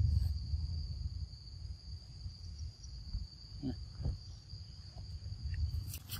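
Insects buzzing in one steady high drone over a low rumble. Near the end comes a sudden burst of rustling and scuffling as young macaques tumble together in the vegetation.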